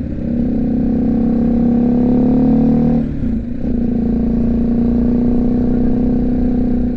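BMW G310GS single-cylinder engine running under way. Its note climbs slightly, breaks off briefly about three seconds in as for a gear change, then holds steady, over low rushing wind noise.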